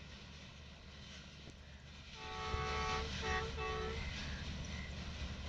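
Horn of a Pakistan Railways ZCU-20 diesel-electric locomotive, heard from far off, sounding one long blast and then two short ones about two seconds in, over the low rumble of the train running away down the track.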